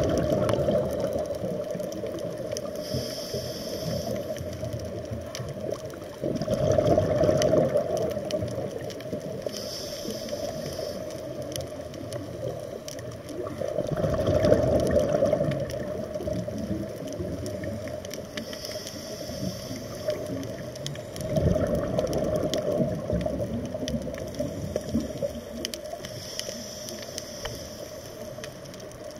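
A scuba diver breathing through a regulator, heard underwater. A short hiss of inhalation is followed each time by a rumbling rush of exhaled bubbles, in a slow, even cycle of about one breath every seven seconds.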